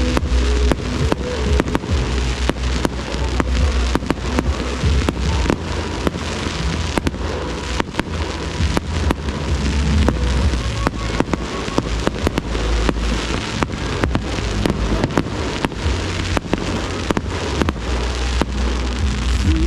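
Fireworks going off in rapid succession: many sharp cracks and pops, several a second, over a constant crackling hiss, with bass-heavy show music playing underneath.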